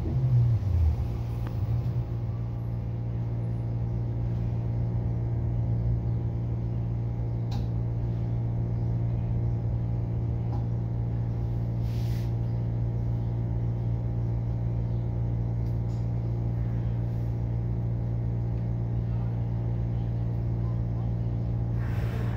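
Steady hum inside a New Flyer XE60 battery-electric articulated bus, made up of several steady low tones from the bus's onboard equipment, with a few faint clicks.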